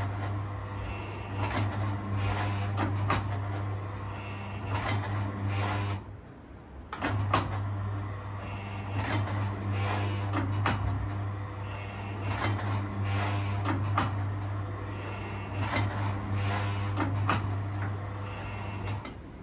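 Farey 400-clay automatic ball trap running, its electric motor giving a steady low hum under repeated clicking and clattering from the mechanism. The motor cuts out about six seconds in, starts again a second later, and cuts out once more near the end.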